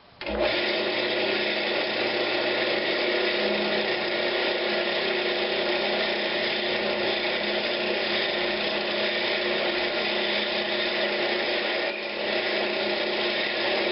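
Wood lathe running with a 1/2 inch Forstner bit held in the tailstock boring a mortise into a spinning pine knob: a steady whine and cutting hiss that starts abruptly just after the beginning, with a brief dip near the end.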